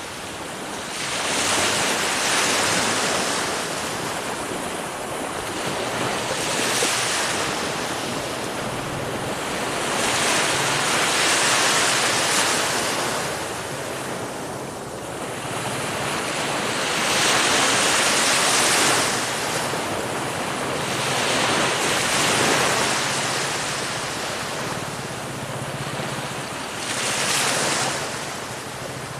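Ocean surf: waves breaking and washing in, the rush of water swelling and fading in repeated surges every few seconds.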